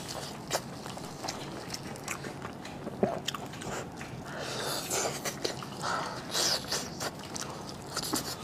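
Close-miked eating: a person biting and chewing food, a string of irregular short clicks and soft mouth sounds.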